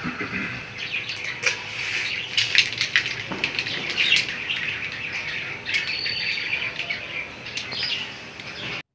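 Close rustling and rapid clicking of plastic light strings and star decorations being handled and hung, with a few short, high chirp-like sounds. The sound cuts off abruptly just before the end.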